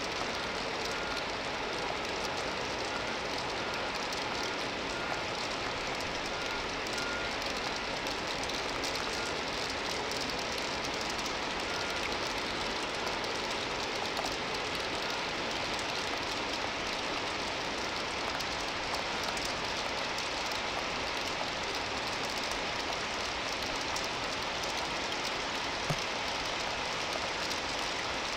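Heavy rain pouring down steadily in a cloudburst. A vehicle's backup beeper beeps in the background about once a second through roughly the first nine seconds, and there is one sharp click near the end.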